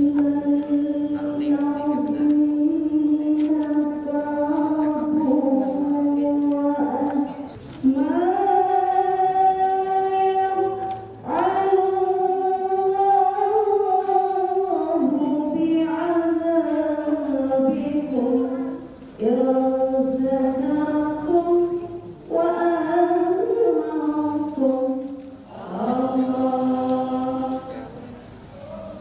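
Singing: a slow, drawn-out vocal melody with long held notes, sung in phrases a few seconds long separated by brief pauses.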